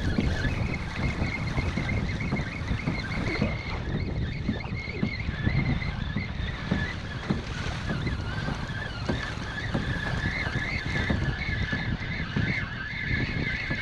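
Wind buffeting the microphone and choppy sea water slapping against a moving kayak's hull. A wavering high-pitched tone runs through much of it and grows stronger near the end.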